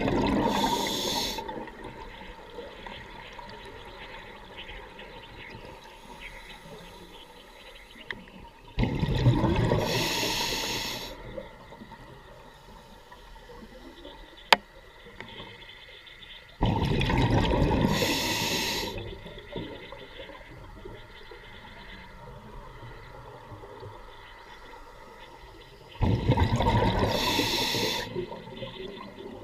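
Scuba regulator exhaust bubbles rushing past an underwater camera: a diver breathing out in four bursts about eight to nine seconds apart, each lasting a couple of seconds, with a quieter hiss between them. A single sharp click about halfway through.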